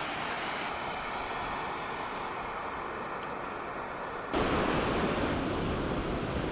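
Steady rushing roar of a waterfall in a gorge below. About four seconds in it turns louder and deeper as wind hits the microphone.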